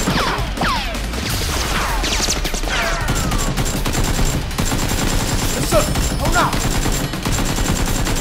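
Gunfire sound effects laid over the scene: rapid, overlapping shots with several short falling whistles among them.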